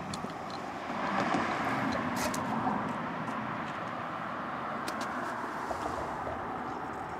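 Passing motor vehicle: tyre and engine noise swelling about a second in and easing off, over a steady background hum, with a few faint clicks.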